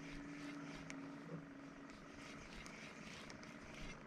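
Faint, steady motor hum that dies away about halfway through, with a few light ticks.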